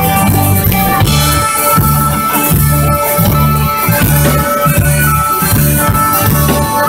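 Folk band playing live through a PA, with drum kit, guitars and keyboard. A bass line pulses about twice a second under held melody notes, with little or no singing.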